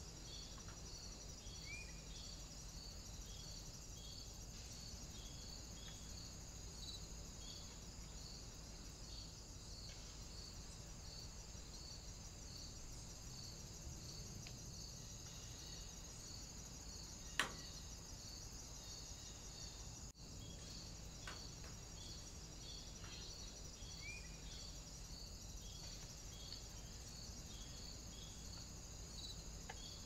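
Faint chorus of chirping insects: a short high chirp repeating steadily over a continuous high hiss. A single sharp click about seventeen seconds in.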